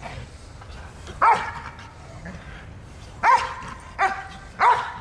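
Belgian Malinois barking four times: one bark about a second in, then three closer together near the end. It is threat barking at a decoy during protection training.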